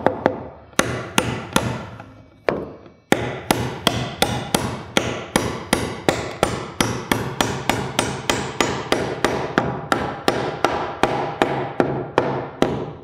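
Hammer driving a 16d-size toenail at an angle through a rafter's bird's mouth into the wall's double top plate, hitting steel on steel into wood. A few blows, a pause of about half a second, then a steady run of rapid blows, about three a second; the angled nail draws the rafter tight and flush against the plate and sheathing.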